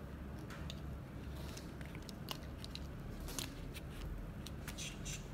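Faint scattered clicks and rustles from plastic toy figures being gripped and moved by hand across a foam play mat, over a low steady hum.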